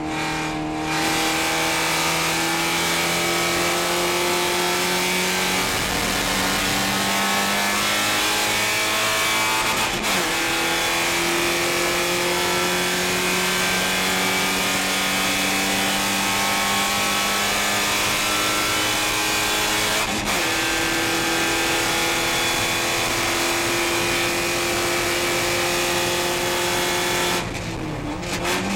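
Porsche 944 Spec race car's four-cylinder engine heard from inside the cockpit, pulling hard under full throttle with the pitch climbing slowly. There are gear changes about ten and twenty seconds in. Near the end the driver lifts off, the engine note drops, and then it rises sharply again as he blips the throttle on a downshift.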